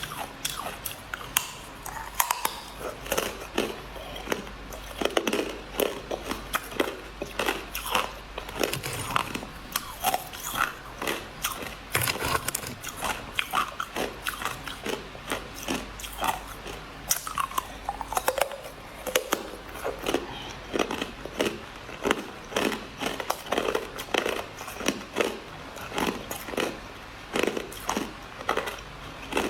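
Crushed ice being bitten and chewed close to the microphone: rapid, irregular crunches several times a second.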